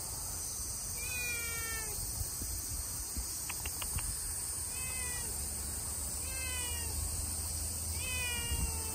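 Stray cat meowing four times, about every one and a half to two seconds, each call falling in pitch.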